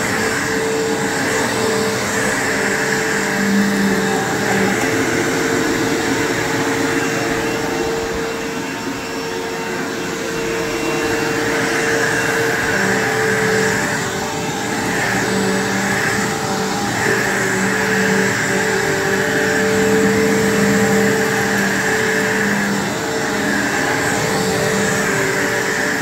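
Bissell PowerForce bagged upright vacuum cleaner (model 3522-1) running on carpet: a steady motor hum with a rushing air sound that swells and eases every few seconds as it is pushed back and forth.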